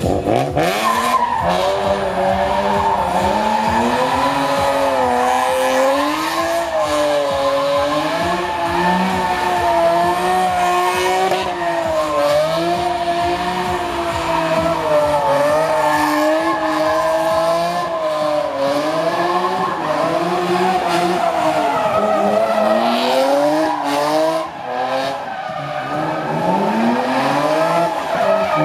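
BMW Z3 drift car's engine held high in the revs, its pitch wavering up and down as it spins donuts, with the rear tyres squealing and spinning in a burnout. Near the end the revs dip briefly and climb again.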